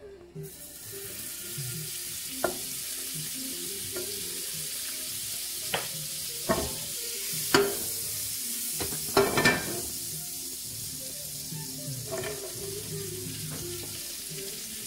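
Butter sizzling as it melts in a hot non-stick frying pan, a steady hiss that starts about half a second in, with a few sharp knocks of the spatula and pan along the way.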